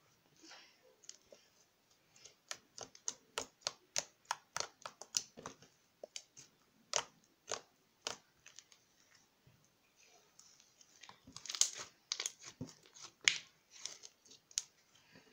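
Cloud slime being stretched and squished by hand, giving irregular sticky crackles and small tearing pops, thickest in the middle and again near the end.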